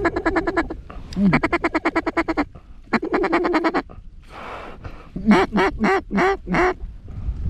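Mallard duck call blown close by: three runs of rapid feed-call chatter, then five separate quacks about a third of a second apart, calling a flock of ducks in toward the decoys.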